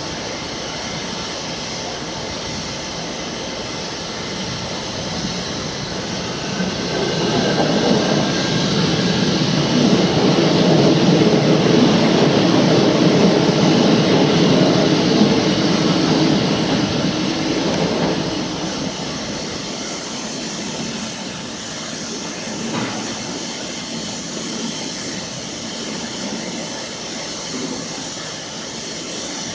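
Steady hiss of steam from a standing steam locomotive, an LNER A1 Pacific. From about seven seconds in, a train passing on a nearer track rises over it, is loudest for several seconds, and fades out by about nineteen seconds.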